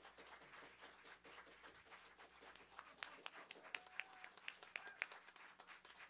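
A few people clapping faintly, scattered claps that grow sharper and more frequent about halfway through.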